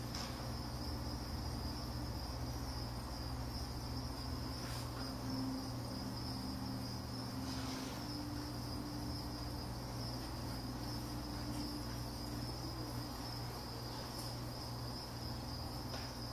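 Steady high-pitched insect trill, unbroken throughout, over a low steady hum.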